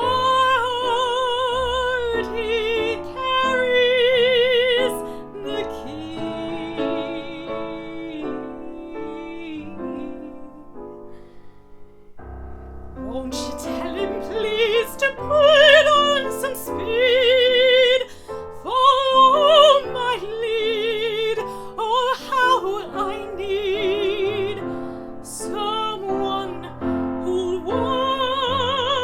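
A woman singing with strong vibrato over piano accompaniment; the music drops to a quiet lull about halfway through, then the voice comes back in.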